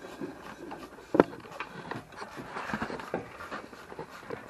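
Irregular clicks and knocks of turbo kit pipes and fittings being handled and fitted together, with one sharp knock about a second in.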